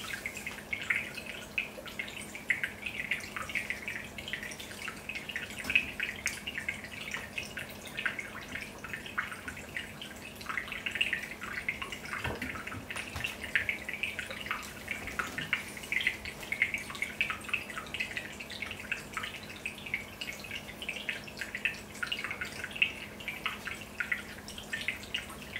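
Aquarium water bubbling: air bubbles breaking at the surface in a steady patter of small pops and trickles, with a faint steady hum underneath.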